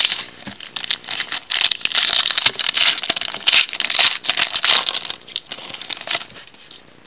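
A trading card pack wrapper being torn open and crinkled, a dense crackling with sharp clicks that dies away about six seconds in.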